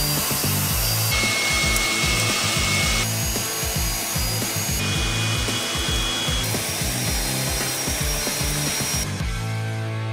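INGCO AB4018 400 W electric hand blower running, a rush of air with a high motor whine that shifts pitch every couple of seconds and stops about nine seconds in. It plays over background music with a steady beat and bass.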